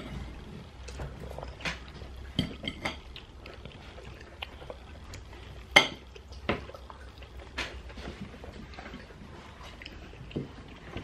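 Cutlery clinking and tapping against plates during a meal: scattered separate clicks, the loudest about six seconds in.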